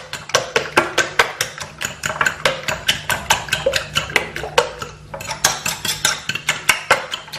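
Eggs being beaten in a bowl with seasoning, a utensil clicking rapidly against the bowl at about four to five strokes a second, with a short pause about five seconds in.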